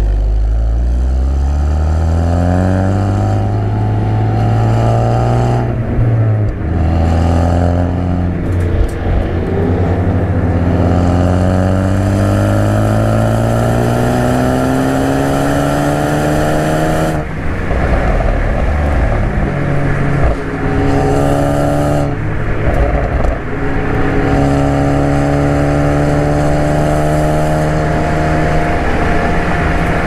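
Ford Focus ST's turbocharged 2.0-litre EcoBoost four-cylinder heard from inside the cabin, accelerating hard with revs rising through the gears. At each shift or lift-off the revs drop suddenly, with sharp exhaust crackles and pops from a stage 3 tune set up for progressive crackles and a resonator-deleted exhaust.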